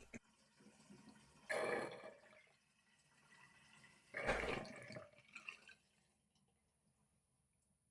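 Water splashing in two short bursts, about a second and a half in and again about four seconds in, from drops of water falling.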